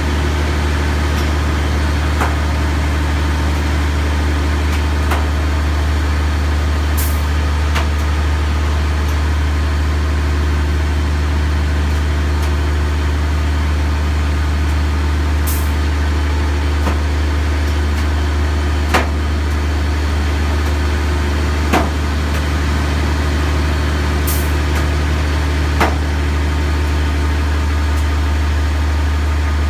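Crane machinery running steadily with a deep, even hum, and a few sharp clicks or knocks in the second half.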